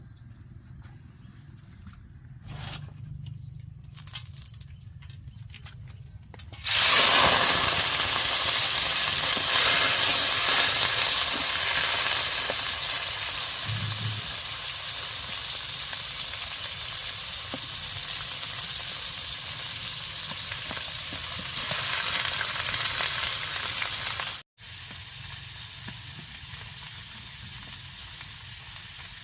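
Food going into hot oil: a loud frying sizzle starts suddenly about a quarter of the way in and slowly dies down as it cooks. Before it, only a steady high insect trill is heard. Near the end the sizzle cuts off sharply and a quieter frying hiss continues.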